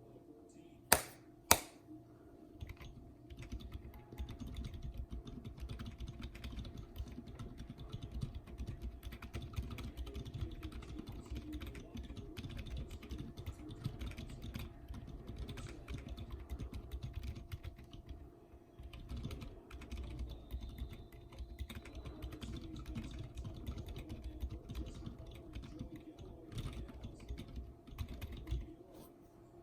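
Typing on a mechanical keyboard fitted with Outemu Silent Sky switches in Outemu Ice housings: a steady run of soft keystrokes with a brief pause a little past the middle. Two sharp, louder clicks come about a second in, before the typing starts.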